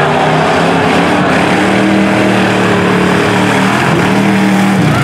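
Jeep Commando tuff truck's engine running hard under throttle, holding a steady note for about three seconds before letting off near the end.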